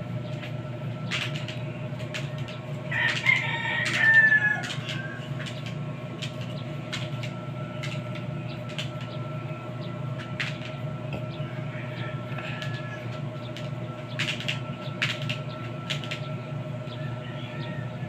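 A washing machine's wash motor humming steadily as the pulsator churns sudsy water round without stopping, with irregular clicks; the machine is broken and will not stop turning. A louder call falling in pitch sounds about three seconds in.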